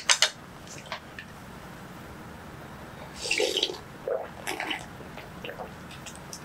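Seaweed soup being slurped and gulped straight from a wooden bowl, a few sips starting about three seconds in. This follows a couple of sharp utensil clicks at the start.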